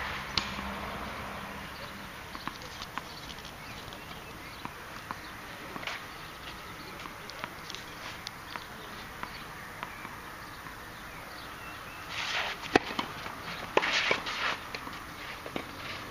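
Tennis on a clay court: scattered light ticks of ball and footsteps, then, near the end, a short run of sharp racket-on-ball hits with brief scraping of shoes on the clay.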